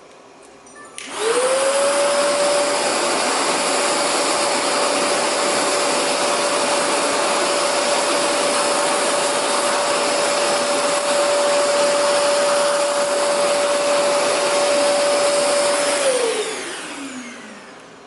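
ZeroG floating vacuum switched on about a second in, its motor whine rising quickly to a steady high tone over the rush of suction air while the bare floor tool sweeps a hardwood floor. It is switched off a couple of seconds before the end, the whine falling away as the motor spins down.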